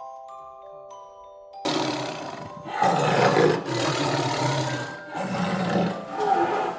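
A few soft glockenspiel-like mallet notes, then a large animal roaring: loud, rough roars in several surges about a second apart.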